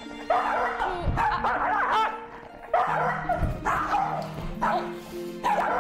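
Small dogs yapping and whining in quick clusters of short yelps, excited and jealous as they compete for attention, over background music with sustained notes.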